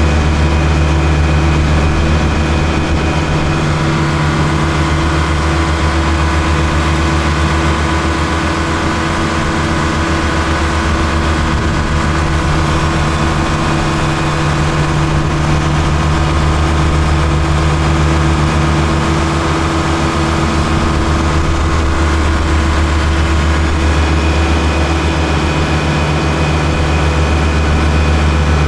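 Kubota L1-452 tractor's diesel engine running at a steady speed while driving a Trimax Pro-Cut S4 rotary mower cutting grass, heard from the driver's seat. A thin high whine rides over the engine, fading out a few seconds in and returning near the end.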